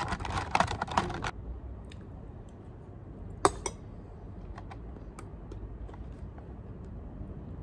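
Typing on a computer keyboard: a quick run of keystrokes for about the first second, then scattered single key clicks, with one louder click about three and a half seconds in.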